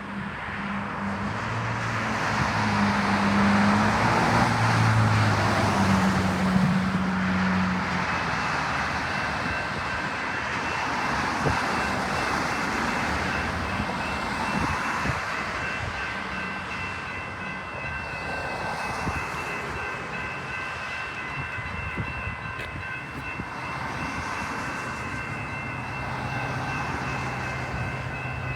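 Metra commuter train passing through the station, a steady rush of train noise that swells over the first few seconds, with a low engine tone under it at first. From about eight seconds in, steady high-pitched squeals ring above the rush.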